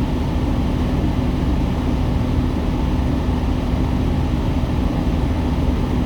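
Semi-truck's diesel engine idling, a steady low rumble with a constant hum.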